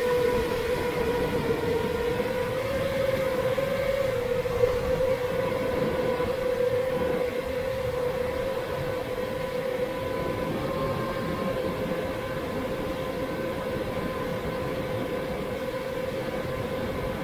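Brushless motors and propellers of a 7-inch FPV quadcopter whining at a steady pitch over rushing wind and prop wash. The pitch lifts slightly about three seconds in, then settles.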